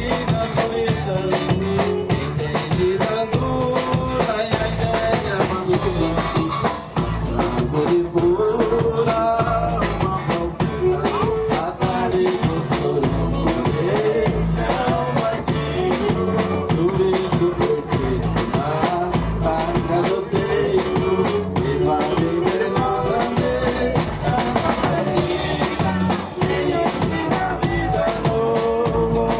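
Gaúcho vanera played by a dance band: a gaita (button accordion) carries the melody over a steady drum-kit and bass beat in an instrumental passage.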